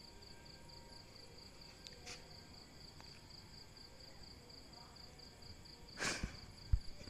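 Insect chirping steadily in a high, even pulsing trill, about five pulses a second. About six seconds in comes a short burst of noise, followed by two dull thumps, the second of which is the loudest sound.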